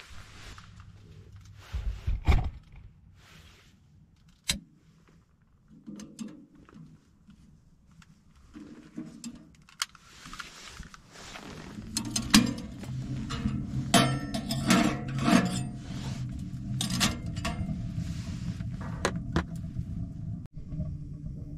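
Knocks and clinks from handling a small stainless-steel tent wood stove and its door. About halfway through, the newly lit wood fire catches and burns with a steady low rumble and frequent sharp crackles and pops.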